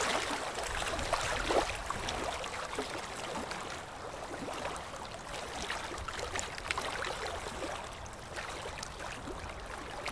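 Running water with a steady trickling, bubbling sound and many small irregular pops, like a stream.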